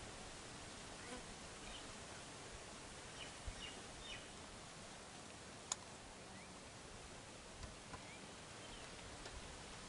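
Faint outdoor ambience: a steady hiss with scattered short, faint bird chirps and one sharp click a little past halfway.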